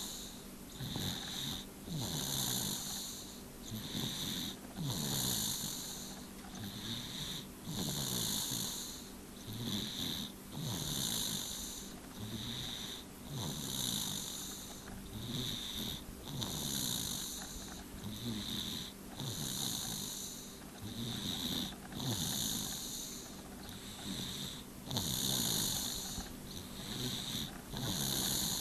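A young child snoring in sleep, steady and rhythmic at about one breath every second and a half, each breath a hissy rasp.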